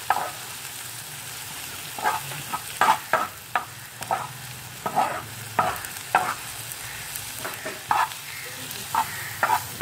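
Spatula stirring and scraping sliced mushrooms, onions and tomatoes frying in a dark frying pan: irregular scrapes, roughly two a second, over a steady sizzle.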